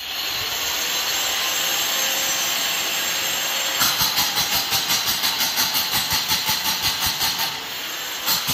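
Electric angle grinder running steadily for about four seconds. It then strikes a reinforced-concrete ceiling in quick repeated touches, about three a second, cutting small notch marks into the slab.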